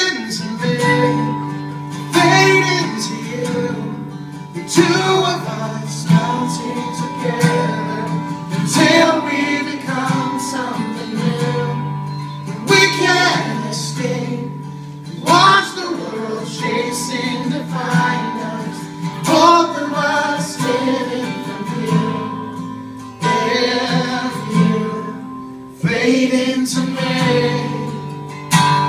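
A man singing a slow song live, accompanying himself on a strummed acoustic guitar.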